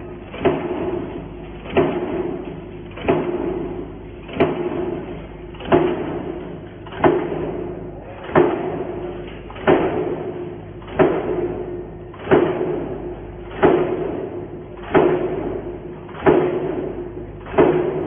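APA-60 C-frame stamping press running continuously, punching knuckle nail plates from coil fed by a servo roll feeder. A sharp thud comes at each stroke of the die, about one every 1.3 seconds, each followed by a ringing that fades before the next, over the steady hum of the running press.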